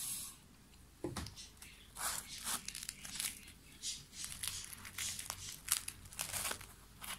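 Irregular crinkling and rustling from handling butter and hot bazlama flatbread as the butter is spread and folded into the bread, a quick run of short rustles throughout.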